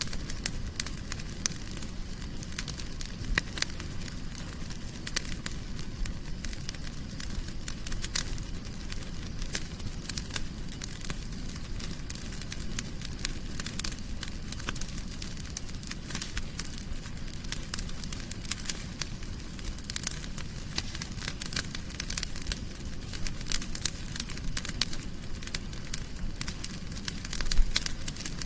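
Wood fire burning in a fireplace: a steady low rumble of flames with constant sharp crackles and snaps, and one louder pop near the end.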